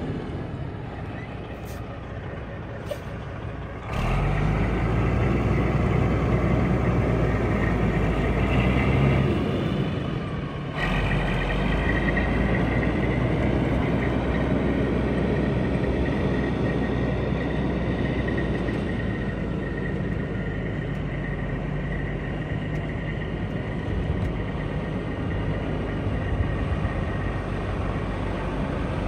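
Diesel engine of a 1993 Kenworth semi tractor driving across a dirt yard. The engine gets louder sharply about four seconds in, dips briefly around ten seconds, then pulls steadily with a high whine over it.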